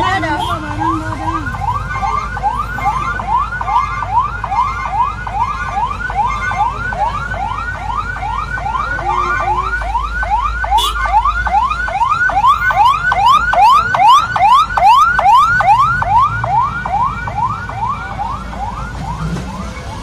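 Electronic siren sounding in quick rising sweeps, about two or three a second, each climbing and then dropping back sharply. It grows louder past the middle, with a second, steeper sweep joining above it, over a low vehicle rumble.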